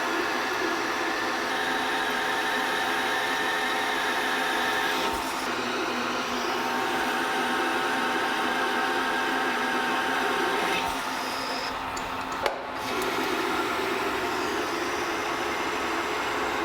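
Metal lathe running, turning a steel shaft, a steady motor hum with cutting hiss that changes character twice as the cut goes on. A single sharp click comes about twelve seconds in.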